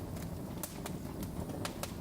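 Wood fire crackling in a fireplace: half a dozen sharp, irregular pops and snaps over a steady low rush of burning logs.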